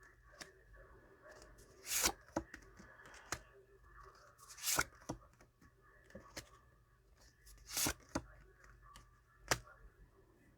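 Tarot cards handled on a table: several short, faint swishes of cards sliding and being laid down, the clearest about two, five and eight seconds in, with small taps and clicks between.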